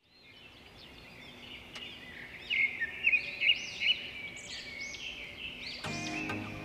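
Several birds chirping and twittering, fading in from silence, with a few louder chirps in the middle. Music starts near the end.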